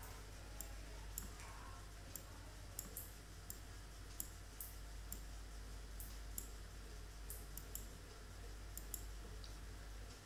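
Computer mouse clicking: faint, irregular single and paired clicks over a steady low hum.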